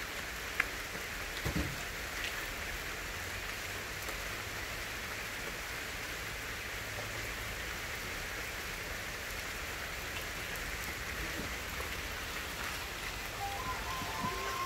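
Steady light rain falling, an even hiss, with a faint knock or two near the start.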